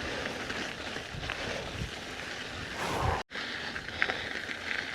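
Steady outdoor background noise, an even hiss with a few faint ticks, broken by a brief dropout to silence a little past three seconds in.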